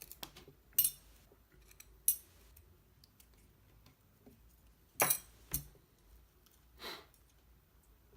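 Small metal parts of a disassembled balisong knife clicking and clinking as they are handled and set down: a few separate sharp clicks, the loudest about five seconds in.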